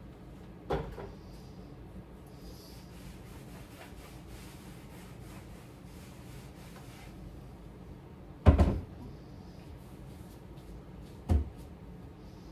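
Kitchen cabinet doors being opened and shut, giving three short knocks: one under a second in, the loudest about eight and a half seconds in, and another near the end.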